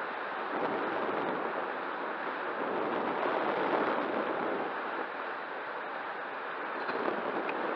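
Steady rushing wind noise on the microphone, swelling slightly in the middle.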